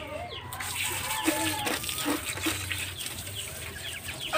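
Water hissing out of the end of a garden hose fed by a homemade power sprayer, starting about half a second in. Chickens cluck in the background.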